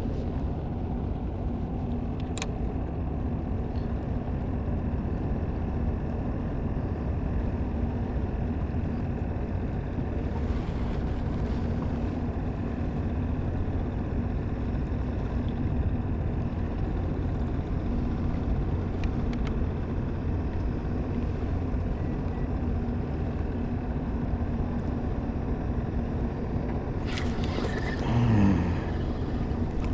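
Steady low engine drone with a constant hum. There is a brief falling tone near the end.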